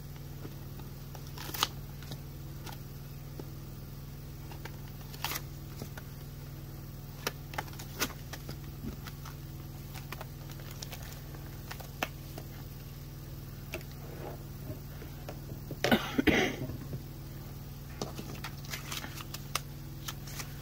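A clear plastic binder pouch and a metal ring binder being handled: scattered clicks and crinkles of plastic, with a louder burst of crinkling and clatter about sixteen seconds in, over a steady low hum.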